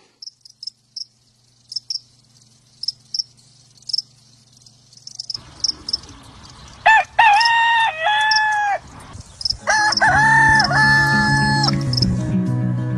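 Rooster crowing twice, the first crow about seven seconds in and the second about ten seconds in, over faint short high chirps that repeat at intervals. Guitar music comes in with the second crow.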